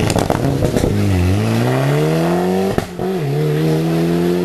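Rally car engine accelerating away hard: after a second of crackles, the revs climb for nearly two seconds, break off sharply at a gear change near the middle, then pull again in the next gear.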